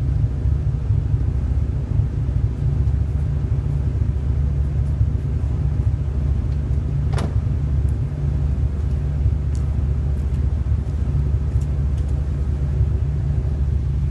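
Chevrolet Opala 4100's inline-six engine idling steadily with a deep rumble through a 6x2 exhaust. A single sharp click sounds about seven seconds in.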